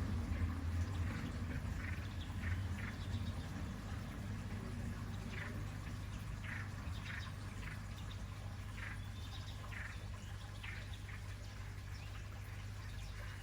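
Small bird chirping: a dozen or so short, high chirps scattered irregularly, over a steady low hum.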